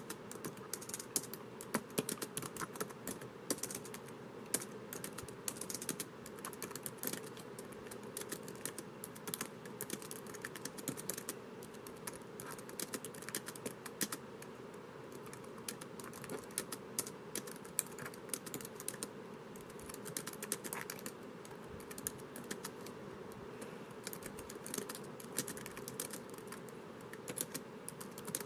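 Continuous typing on a laptop keyboard: quick, irregular key clicks with no pauses, over a faint steady background hum.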